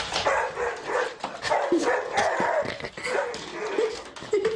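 A dog vocalizing in a rapid series of short, pitched barks and yips.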